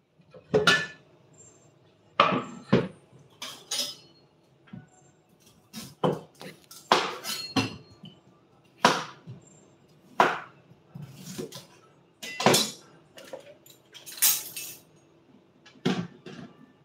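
Kitchen work with a knife and bowl while a green vegetable is cut up: a knife knocking on a cutting board and dishes clinking. It comes as about fifteen sharp, irregular knocks and clinks, some ringing briefly, over a faint steady hum.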